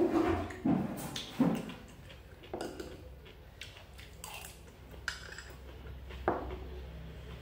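A spoon clinking and scraping against a small ceramic bowl while eating: a handful of short sharp taps, the loudest in the first second and a half.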